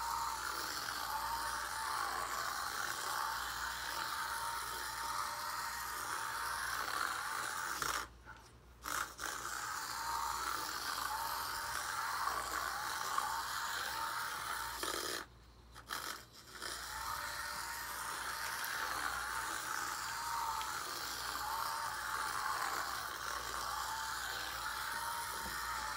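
Turbo Racing Gen 2 micro RC car's tiny electric motor and gears whining steadily as it drives laps, the pitch wavering with the throttle. The whine drops out twice for about a second.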